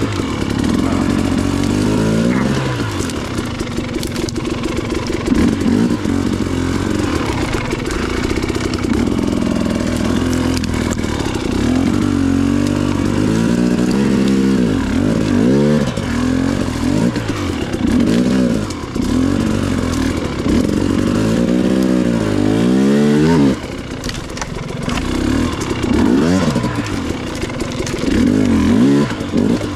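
KTM two-stroke dirt bike engine under load at low trail speed, its revs rising and falling again and again with short throttle blips.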